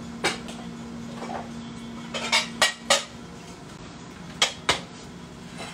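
Dishes clinking and clattering as a bowl is taken out from among others in a kitchen cabinet: scattered sharp knocks, a quick run of four about two to three seconds in and two more later.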